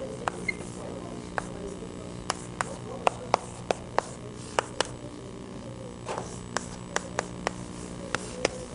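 Chalk tapping against a chalkboard as an equation is written: a run of sharp, irregular clicks, about two a second, over a low steady hum.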